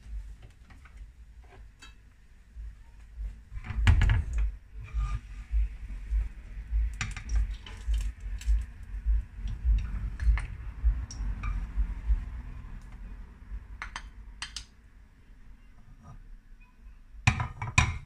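Wooden spoon scraping and knocking against a nonstick frying pan as food is scooped out onto a plate, with a few clinks. There is a loud knock about 4 seconds in and another cluster of knocks near the end as the pan is handled on the stove.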